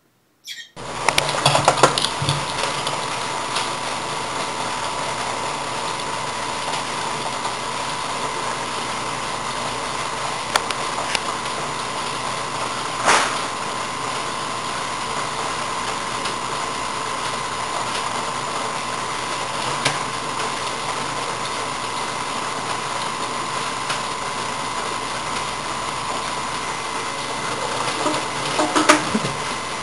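Kitchen faucet running steadily into a stainless-steel sink as a cat drinks from the stream; the water sound starts abruptly just under a second in. A single sharp click about halfway and a few light knocks near the end.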